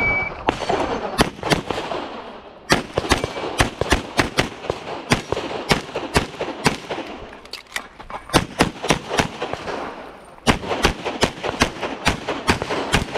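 A short electronic shot-timer start beep, then a practical-shooting pistol string fired in rapid pairs and quick groups of shots. The firing thins out for a few seconds past the middle, then picks up again fast.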